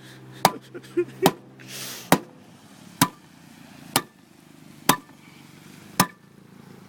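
Seven sharp knocks, about one a second: blows struck on a spare tire stuck fast in a Buick's trunk, trying to beat it loose.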